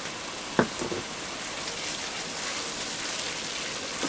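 Steady sizzling of a blended vegetable and tomato-paste base frying in oil in a pot, with one sharp knock about half a second in.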